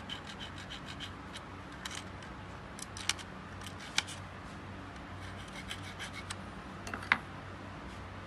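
A thin metal blade scraping and clicking against the brush holder and rectifier plate of a Toyota Camry alternator. A quick run of small scrapes is followed by a few sharp metallic clicks, the loudest about seven seconds in, over a steady low hum.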